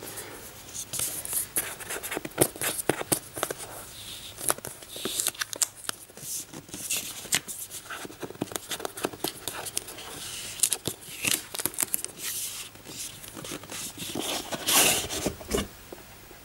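A cardboard box handled and turned over in the hands: a steady run of small taps, clicks and scrapes of fingers rubbing and gripping the card.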